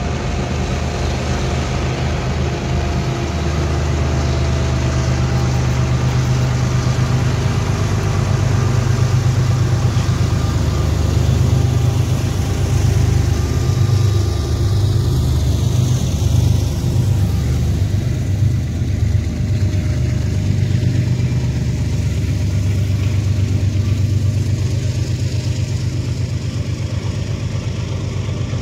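Two GE ES44DC diesel locomotives, with V12 engines, pulling hard up a grade with a loaded coal train. Their deep, steady drone grows louder as they approach and pass about halfway through, then loaded coal hoppers roll by.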